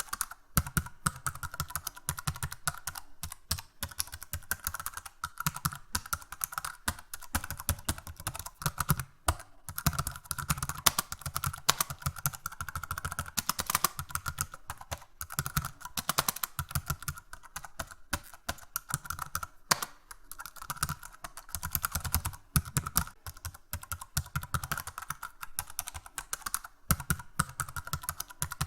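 Fast, hard typing on a computer keyboard, keys clacking in a dense unbroken stream with only a few brief pauses.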